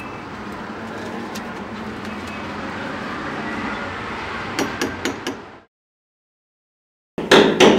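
Metal ring door knocker striking a heavy wooden door: four quick knocks about five seconds in, then, after a moment of silence, three louder knocks near the end. Before the first knocks a steady background hiss runs and then cuts off.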